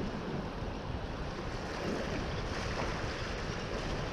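Sea waves washing and splashing against jetty rocks, with wind buffeting the microphone as a low rumble.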